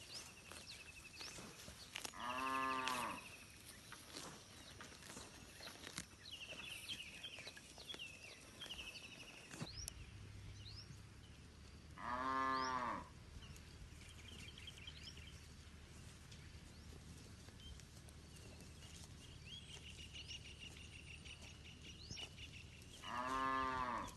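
Village cattle mooing: three loud moos, one near the start, one mid-way and one near the end, each about a second long and rising then falling in pitch. Small birds chirp and trill throughout, and a low steady hum comes in about ten seconds in.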